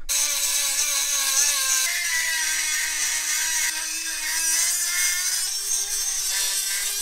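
Handheld Dremel rotary tool grinding out the edge of a hole in a steel vehicle frame: a steady high whine with a gritty hiss, its pitch stepping up slightly a couple of times as the bit works the metal.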